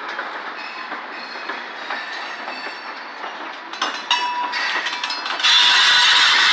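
Train cars rolling past, wheels clicking over the rail joints with a faint squeal. About five and a half seconds in, a much louder, high-pitched screech of the wheels sets in.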